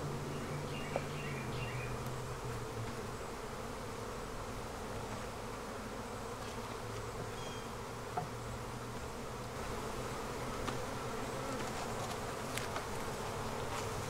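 A colony of honeybees buzzing steadily around an opened hive, a continuous low hum.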